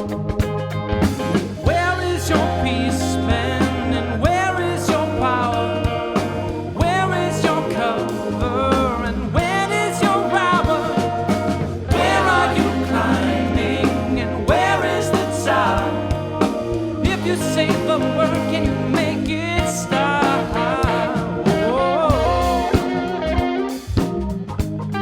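Band music with no sung words: a low bass line played on organ under a lead melody that bends in pitch, with a steady beat.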